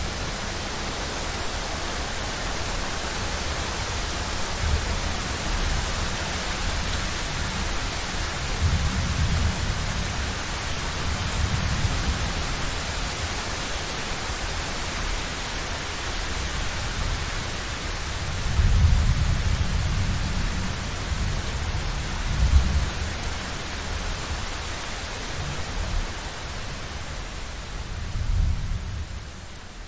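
Thunderstorm: steady rain hiss with several rolls of low thunder rumbling through it, the loudest about two-thirds of the way in.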